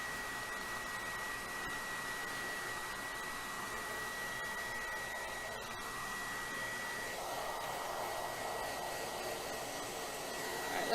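Trezoro ceramic, tourmaline, ionic hair dryer running: a steady rush of air with a thin high whine over it, the air sound shifting a little past halfway.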